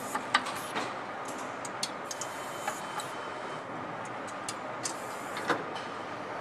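Engine assembly-line ambience: a steady mechanical hum and hiss with scattered sharp metallic clicks and taps as parts are handled at the workstation, the loudest about half a second in and again near the end.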